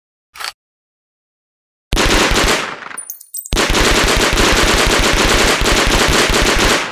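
German MP 41 submachine gun firing on full automatic: a brief sharp report, then a short burst and a longer burst of about three seconds, the shots coming rapidly and evenly. Between the bursts there is light metallic tinkling, like spent casings landing.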